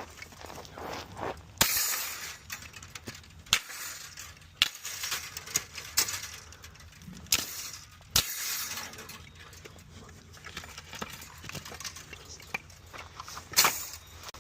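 Irregular clatter of objects being handled: scattered knocks and clinks, several sharper impacts, and rustling between them.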